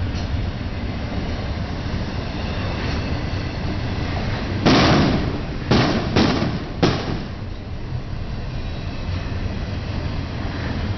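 Intermodal freight train passing with a steady low rumble, broken near the middle by four sharp bangs within about two seconds, the first the loudest.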